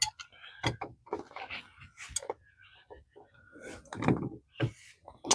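Irregular clicks, knocks and scrapes of a threaded pipe fitting being handled and screwed onto a waterline.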